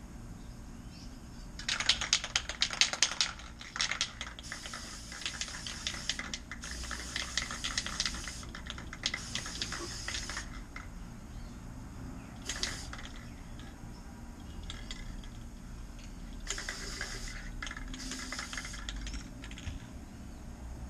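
Aerosol spray can shaken with a burst of rattling clicks, then sprayed onto a bamboo tube in a series of hissing bursts, each about one to two seconds long, with short pauses between.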